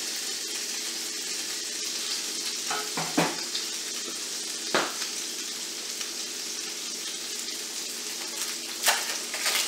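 Hamburger patties sizzling in a hot frying pan, a steady hiss. A few sharp clinks of a metal spatula and plate come about three, five and nine seconds in.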